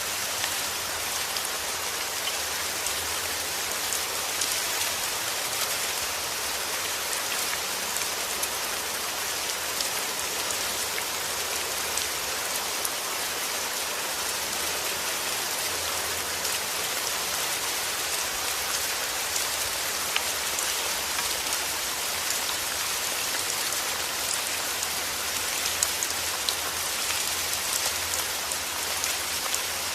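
Heavy rain falling steadily: an even hiss with many small sharp drop ticks scattered through it.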